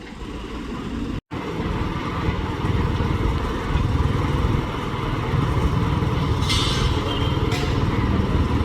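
Steady low rumble of a motor engine, with a brief hiss about six and a half seconds in.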